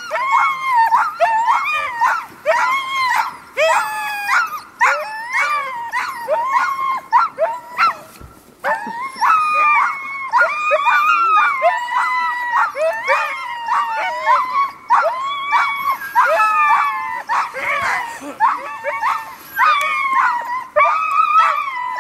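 A team of harnessed sled dogs barking and yelping together in a dense, overlapping chorus of high calls that bend in pitch, with a brief lull about eight seconds in.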